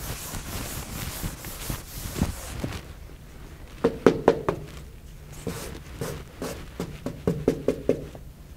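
Chalk on a blackboard: a soft scratchy rubbing for the first few seconds, then clusters of sharp chalk taps and clicks against the board, one about four seconds in and more near the end.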